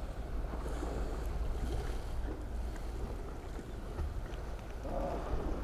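Wind on the microphone over the steady wash of sea water below the pier, with a short faint call or voice about five seconds in.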